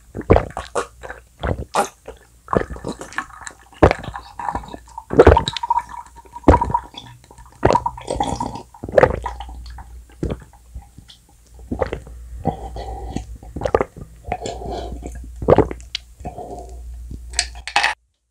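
A person gulping cold water from a glass in a long run of loud swallows close to the microphone, roughly one or two a second. The sound cuts off suddenly near the end.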